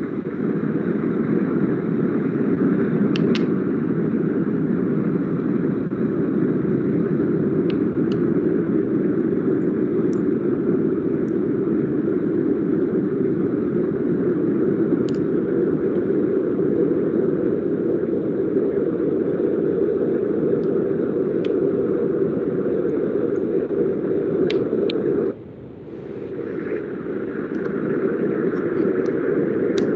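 Steady rumbling noise coming through a video-call microphone, dropping out abruptly for about a second near the end before coming back.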